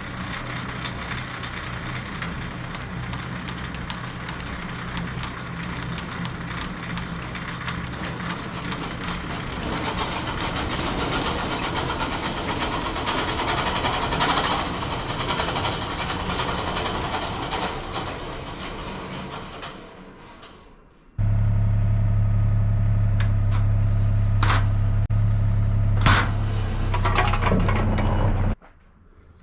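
Engine-driven machinery running steadily with a low engine hum and mechanical noise. About 21 seconds in it changes abruptly to a louder, very steady low engine hum, which stops abruptly shortly before the end.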